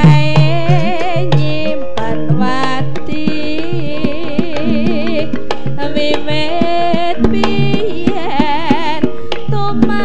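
Javanese gamelan accompaniment for a dance: a singer's wavering, vibrato-laden melody over sustained low metallic tones and regular hand-drum strokes.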